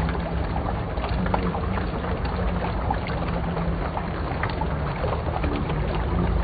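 Water sheeting down the face of an indoor water-wall fountain and splashing into the pool of its basin: a steady rushing, crackling splash.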